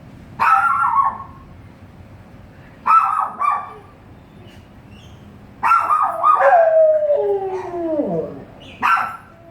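A dog making odd howling, yowling vocalisations in about four short bouts. The longest bout, past the middle, slides down in pitch at its end.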